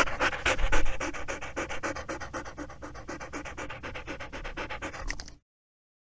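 A dog panting rapidly, about five quick breaths a second, loudest at the start and easing off, then cutting off abruptly near the end.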